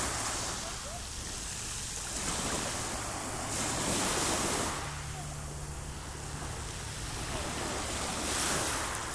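Sea waves breaking and washing in, a steady surf hiss that swells and falls back in three surges.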